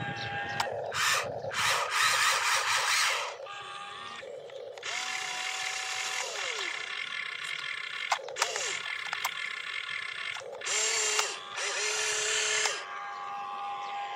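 RC excavator's small electric motors whirring and whining in several runs of a few seconds as the boom swings and digs. The whine rises as a motor starts, holds, and falls away as it stops.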